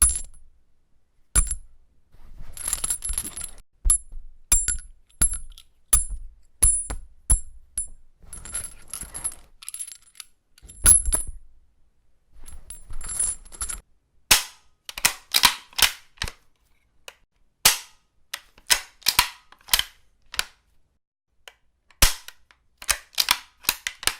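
Metal clicks and clacks of a .303 bolt-action rifle being handled: bolt, magazine and other parts worked in a string of short separate takes. In the first half many of the clicks ring with a high metallic tone and rattle in places. From about halfway on they are dry, sharp clicks in quick groups.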